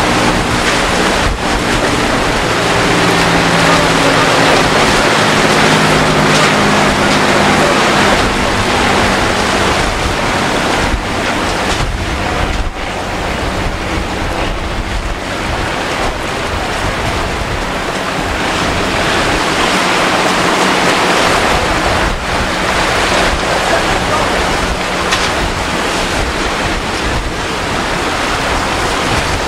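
Surf breaking and wind buffeting the microphone. During the first several seconds a boat engine hum, shifting slightly in pitch, runs under the surf and then fades.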